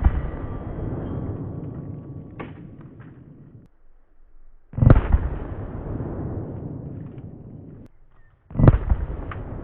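Three 12-gauge shotgun shots from a Benelli firing Rhodesian Jungle buckshot at a door: one at the start, one about five seconds in and one about eight and a half seconds in. Each shot is followed by a long rolling echo that fades over a few seconds.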